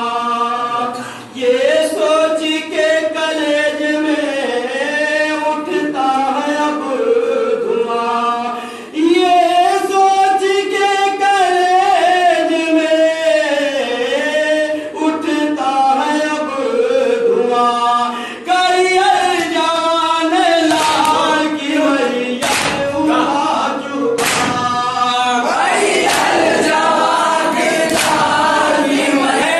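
Men chanting a Shia nauha (Muharram lament) in unison: a lead reciter's voice over a microphone with others joining, in long held, wavering lines. In the last third a larger crowd of men joins loudly, with a few sharp slaps of matam (chest-beating).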